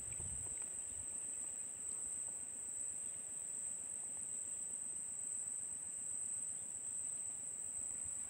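Insects singing in a steady, high-pitched, unbroken drone.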